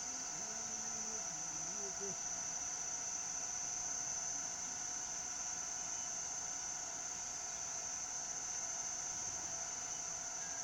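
Insects, likely crickets, chirring in one steady, continuous high-pitched drone.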